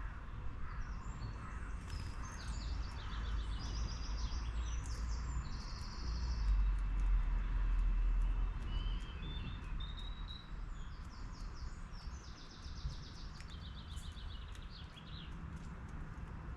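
Small garden songbirds singing: bursts of rapid, high trilled notes near the start and again in the last few seconds, with a few short rising chirps in the middle. Underneath runs a low steady rumble that swells around the middle.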